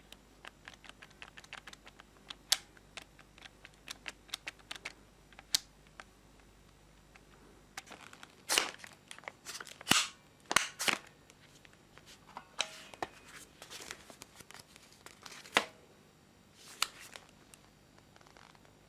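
An irregular series of sharp clicks and snaps, uneven in spacing and loudness, with a few louder ones clustered about halfway through.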